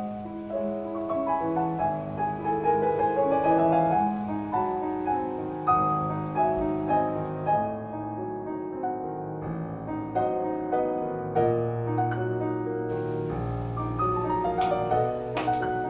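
Gentle background piano music, with a quick rising run of notes about three seconds in.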